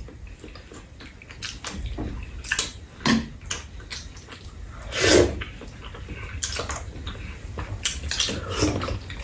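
Eating sounds from two people: wet chewing and slurping of soup and a sweet-potato side dish, with light clicks of spoons against bowls. The longest slurp comes about five seconds in.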